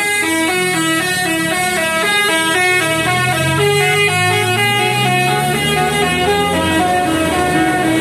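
Basuri telolet multi-tone bus horn playing a quick melody of stepping, alternating notes. Under it the coach's engine pulls away, its pitch rising and falling.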